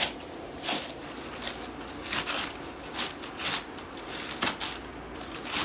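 Clear plastic wrap crinkling and rustling in irregular short bursts as it is pulled and crumpled in the hands while being opened.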